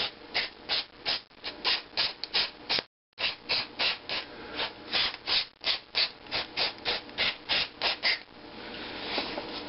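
Rapid back-and-forth scrubbing in the valve-port area of a Briggs & Stratton 4 HP engine's cylinder block, about three strokes a second, clearing out built-up gunk. The strokes break off briefly about three seconds in, then turn into a softer, steadier rubbing near the end.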